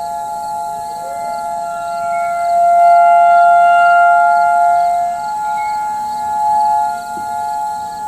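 Several outdoor tornado warning sirens sounding a steady alert tone during a siren test, heard as two steady pitches together. The sound swells and fades, loudest about three to four seconds in.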